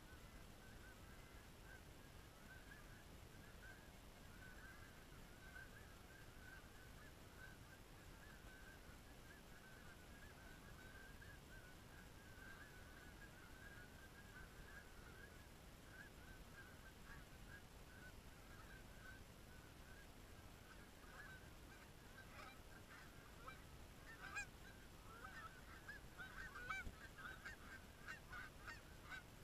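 Flock of Canada geese honking, a faint steady chorus of many overlapping calls; from about three quarters of the way through, louder, separate honks stand out.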